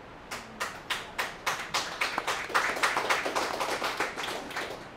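A small audience clapping: a few scattered claps that quickly build into brief applause, then thin out and stop near the end.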